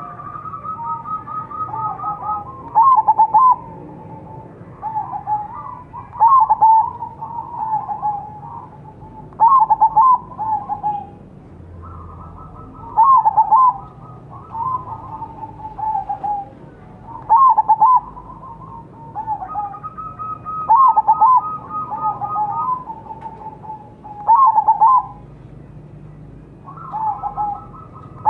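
Crossbred zebra dove (perkutut) cooing its song over and over, one phrase every three to four seconds: each a loud burst of quick trilled coos followed by a few lower notes, in the mellow voice prized in these birds.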